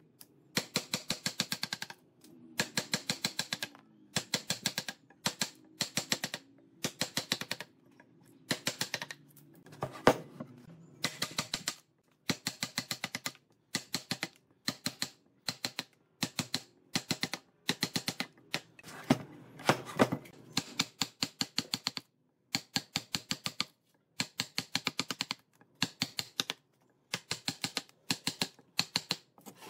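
Rapid sharp taps in short bursts, about ten strikes a second, each burst lasting up to a second with brief pauses between them.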